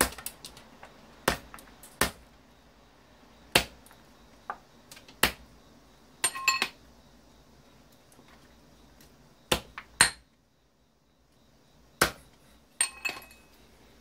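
Hammer blows on a steel dumbbell weight used as an anvil, cracking the hard plastic bobbin off a vacuum motor's copper coil to free the wire. About ten sharp single knocks come at irregular gaps of one to two seconds, a few of them with a short metallic ring.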